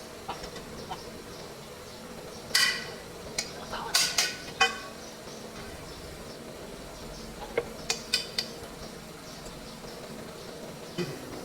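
A handful of sharp metallic clinks and taps, like metal parts or tools knocking together, in two short clusters: one about two and a half to five seconds in, the other about eight seconds in, over a steady low background hum.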